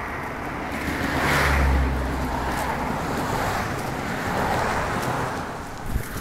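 Outdoor road-traffic noise with a steady rumble and hiss, as a vehicle passes close by about a second in.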